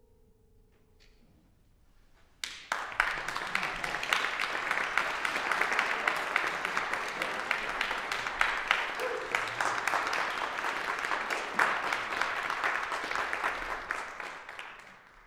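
The last sustained grand-piano notes die away, then, about two and a half seconds in, a hall audience starts applauding and keeps clapping steadily, tapering off near the end.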